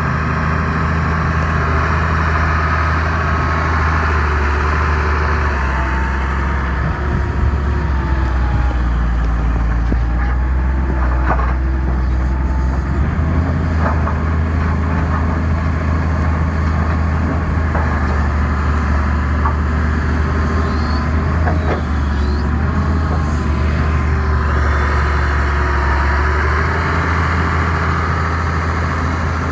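Six-cylinder diesel engine of a 2005 Hitachi ZX350 demolition excavator running steadily, its pitch stepping a few times, with a wavering hydraulic whine as the boom and bucket work and a few scattered clanks.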